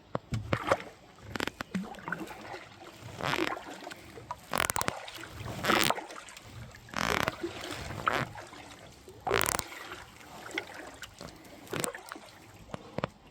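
Kayak paddle strokes dipping and pulling through river water, a splashy swoosh about once a second with a few sharp knocks of the paddle in between.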